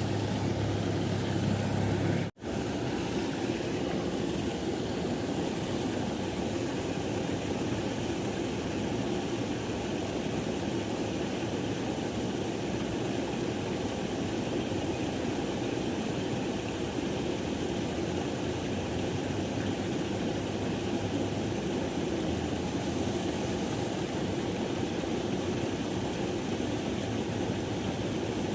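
Steady rushing of river water, an even hiss without pitch or rhythm, broken by a momentary dropout about two seconds in.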